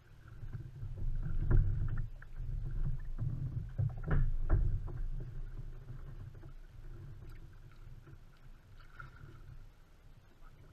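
Water slapping and sloshing against the hull of a Jackson Cruise FD pedal fishing kayak, with a few knocks on the hull, louder in the first half.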